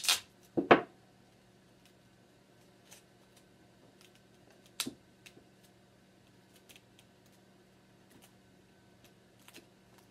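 Grey duct tape ripped off the roll and torn in a few quick, sharp rips in the first second, then faint crinkles and taps as it is pressed onto the plastic plate.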